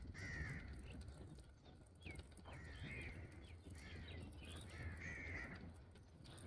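A bird calling again and again outdoors: about five short, faint calls, roughly one every second.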